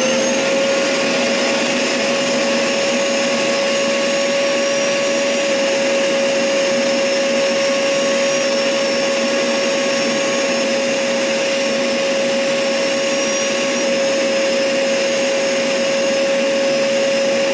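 Upright carpet washer running, its motor giving a loud, steady whine over a rush of air, while its hose and handheld wash tool are worked over an upholstered bed base.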